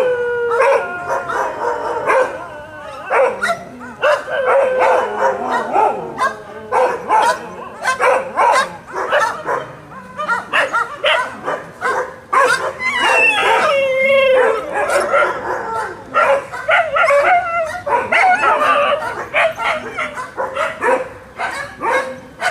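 Angry dogs barking hard and almost without pause, many short barks in quick succession, with a few drawn-out, wavering howl-like calls among them.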